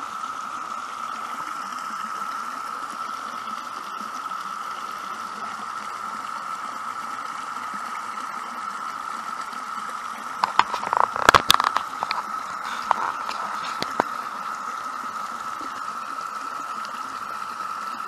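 Steady high droning chorus of Brood X periodical cicadas over the rush of a flowing creek, with a quick run of sharp clicks and knocks about ten to twelve seconds in.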